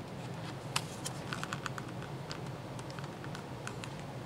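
Adhesive tape being pried and peeled off a TV's metal panel frame and T-con board, giving small irregular crackling clicks over a steady low hum.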